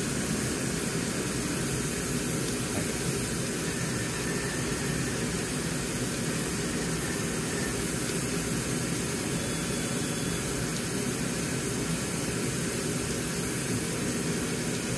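Walter Helitronic Mini Power CNC tool and cutter grinder running: a steady mechanical whir and hiss with a low hum underneath, unchanging throughout.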